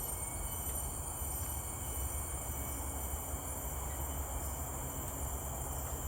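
Steady high-pitched chorus of insects in forest, several shrill tones held without a break, over a constant low rumble.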